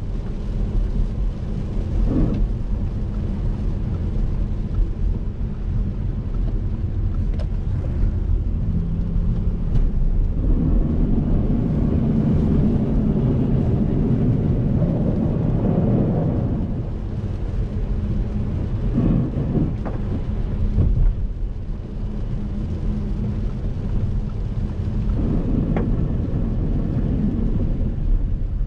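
Cabin sound of a 2012 Audi A7's 3.0 TDI V6 diesel on the move in rain: a low engine drone under the rumble of tyres on a wet road, with rain on the car. The rumble grows louder for several seconds in the middle, and there are a few light knocks.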